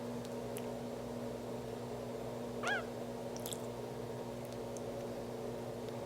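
A bearded dragon burping once about halfway through, a short squeak that rises and falls in pitch, over a steady low hum. The burp releases air swallowed while gulping its food.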